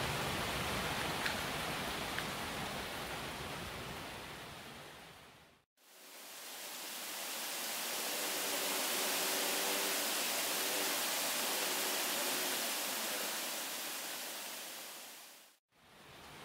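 Steady hiss of heavy rain, dropping out to silence twice, about six seconds in and again near the end. A couple of faint clicks come about a second and two seconds in.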